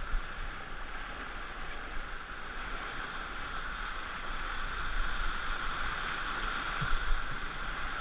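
Whitewater rapid rushing and splashing against the front of an inflatable raft held surfing in the current; a steady rush of water that grows louder about halfway through.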